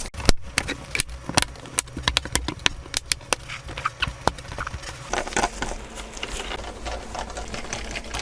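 Quick, irregular small clicks and taps of hand work on a laptop's plastic bottom cover as it is fitted and screwed back on, busy for the first five seconds and sparser after.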